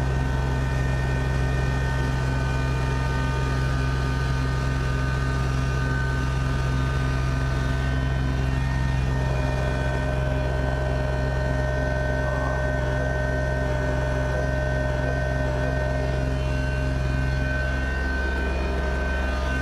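Kubota BX2680 compact tractor's three-cylinder diesel engine running steadily at working speed, driving its rear-mounted snowblower.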